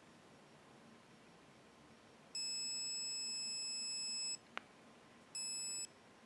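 Polaroid Cube+ action camera beeping: one long, steady high-pitched beep of about two seconds, then a click of its button and a second, short beep.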